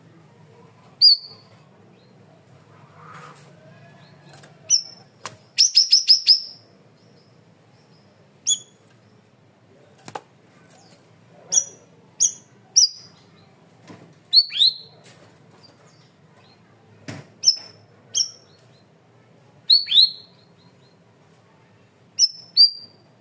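A cucak rawis (bayeman) songbird giving loud, sharp, high chirps and short downward-sliding whistles, spaced a second or two apart. About six seconds in comes a quick run of about five notes.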